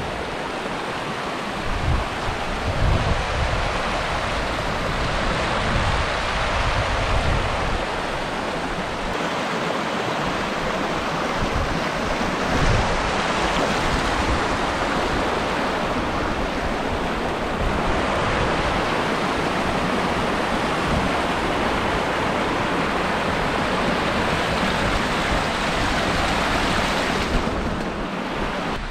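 Strong gusty wind hitting the microphone over the steady rush of a rocky mountain stream. The gusts are heaviest in the first several seconds, and the noise eases just before the end.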